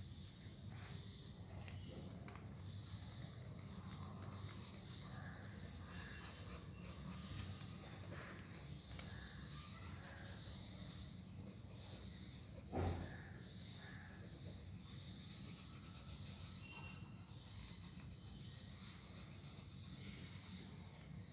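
Pencil scratching and shading on drawing paper, faint and continuous, with a single brief thump about 13 seconds in.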